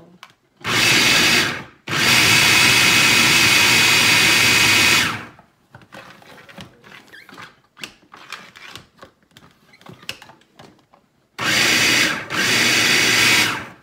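Electric food processor motor running in pulses while it chops carrots fine: a short burst about a second in, a longer run of about three seconds right after, and another of about two seconds near the end. Quiet handling knocks come in between.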